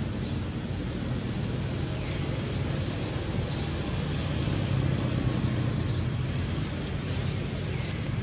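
Steady outdoor background noise with a low rumble, and a few brief high chirps about every two to three seconds.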